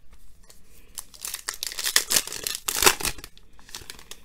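Foil wrapper of a trading card pack crinkling and tearing as it is handled: a run of sharp rustles, loudest about three seconds in.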